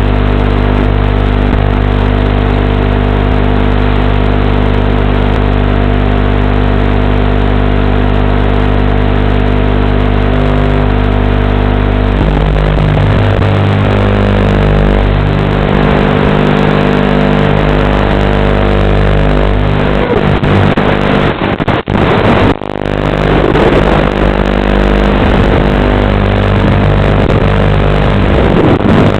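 A 6-inch FPV quadcopter's motors and propellers buzzing hard. The pitch holds steady at first, then shifts up and down with throttle, and the sound drops out sharply twice about two-thirds of the way through, as the throttle is chopped.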